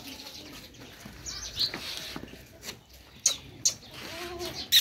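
Beetal goat kids being handled and shuffled about on a brick-and-dirt yard: soft scuffling with a few sharp clicks, and one brief low call about four seconds in.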